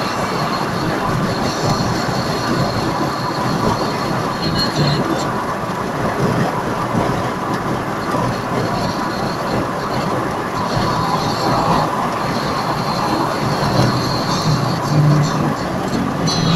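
Steady road and wind noise heard inside a car's cabin while driving at motorway speed.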